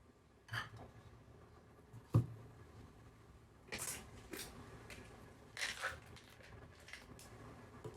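Kitchen handling noises: a sharp knock a little after two seconds in, with short scraping or rustling sounds around four and six seconds in and a few light clicks.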